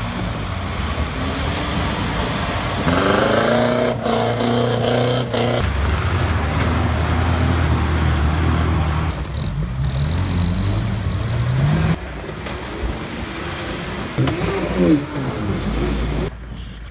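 Engines of off-road 4x4s driving through icy water and mud, revving hard, with the engine note climbing in pitch twice. The sound switches abruptly several times as it jumps from one vehicle to the next.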